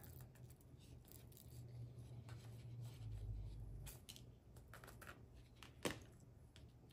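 Tiny resin diamond-painting drills poured from a plastic tray into a small storage container: faint scattered ticks, with one sharper click near the end.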